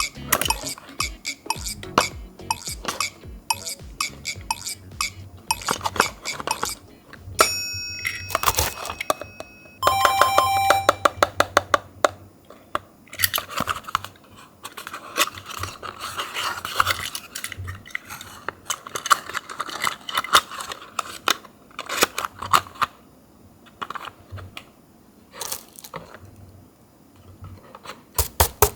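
Die-cast Tomica minicars being handled and slid into small cardboard boxes: many small metallic clicks and clinks, with a stretch of rubbing and scraping in the middle. Two short chime-like tones sound about eight and ten seconds in.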